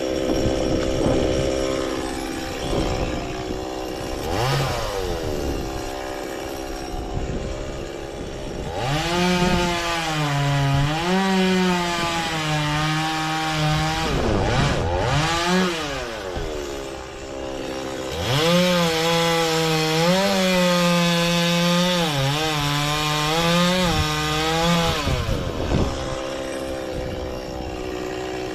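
Stihl two-stroke chainsaw idling, then revved to full throttle and cutting through a frangipani trunk in two long cuts, its pitch dipping and wavering under load, falling back between cuts and revving up again near the end.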